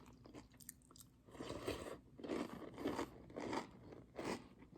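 A person chewing a mouthful of Cap'n Crunch cereal in milk: about five crunchy chews, starting about a second in.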